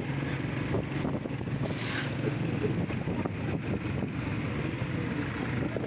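Motorcycle engines running steadily in moving road traffic, with road noise.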